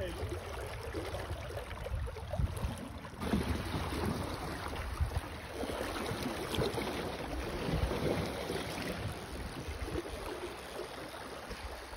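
Wind buffeting the microphone, with a low, uneven rumble, over river water lapping and splashing. It gets a little brighter and busier about three seconds in.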